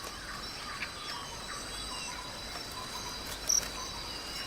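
Night chorus of crickets and other insects: a steady high trill with fainter repeated short chirps. One brief, louder high chirp comes about three and a half seconds in.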